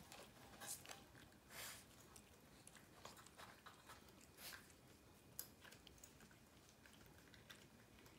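Faint, soft licking sounds of a tabby cat grooming a puppy's fur: scattered wet clicks and short rasps.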